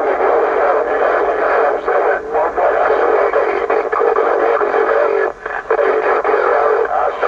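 Cobra 148 GTL CB radio on receive, its speaker putting out a steady wash of static and band noise with garbled, unintelligible voices mixed in. The sound is thin and confined to the middle range, with a couple of brief dips in the noise.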